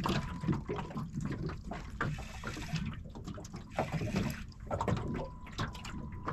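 Water splashing and slapping in quick, irregular bursts as a hooked tailor is fought to the surface beside a small aluminium boat on wind-chopped water.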